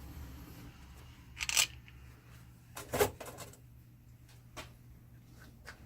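Short metallic clinks and clatters of small parts being handled on a workbench: two louder ones about a second and a half and three seconds in, then a few faint ticks, over a low steady hum.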